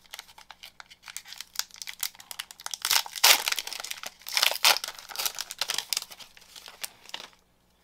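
Plastic wrapper of a Topps MLS trading card pack being torn open and crinkled: a dense run of crackles, loudest in the middle, that stops shortly before the end.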